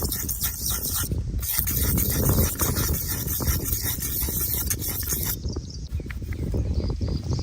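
Razor scraping across stubble in quick, repeated short strokes.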